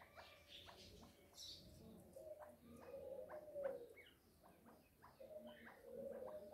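Chukar partridge chicks calling faintly: many quick, high, short peeps, with four low drawn-out notes that drop in pitch at their ends, in two pairs.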